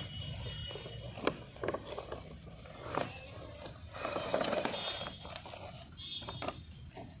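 A cardboard toy box and its packaging being handled and opened by hand: scattered clicks and knocks, with a longer stretch of scraping and rustling about four seconds in.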